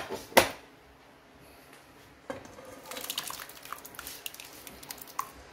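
Two sharp metal clinks near the start, then, from about two seconds in, thick cooked dal with spinach sliding and plopping out of a pressure-cooker pot into a pan: a run of wet squelches and small clicks.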